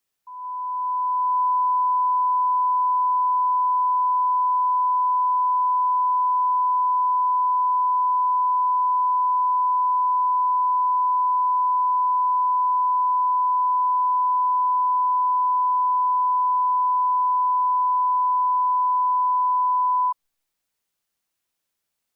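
Tinnitus sound effect: a single steady, pure ringing tone that swells in over about a second, holds without change for about twenty seconds, then cuts off suddenly near the end.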